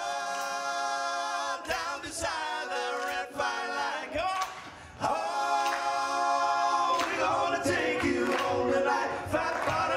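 Several men's voices singing together, holding long notes in a group chorus; the singing grows louder about five seconds in, with a few sharp hits in between.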